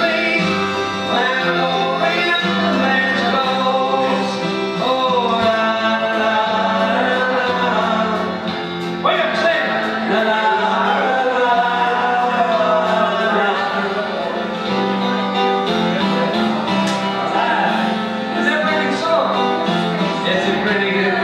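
Live music: a man singing into a microphone with guitar accompaniment.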